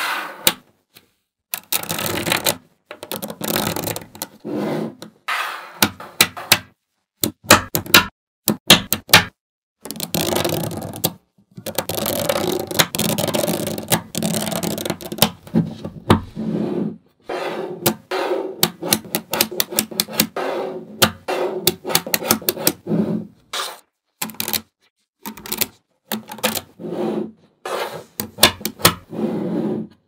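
Small magnetic balls clicking and rattling as sheets of them are slid, pressed and snapped together by hand. Runs of sharp separate clicks alternate with longer stretches of dense, rapid rattling, with short silent gaps between.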